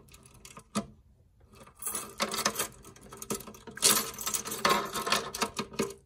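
A key being turned in the lock of a Hermes 3000 typewriter case, with the other keys on its ring jangling and clinking against the metal lock plate. A few single clicks come first, then from about two seconds in a busy run of rattling clinks as the key is turned to unlock the case.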